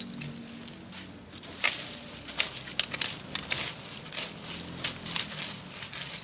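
A digging tool chopping into soil to dig out purple yam tubers. The strikes come about two a second, starting about one and a half seconds in.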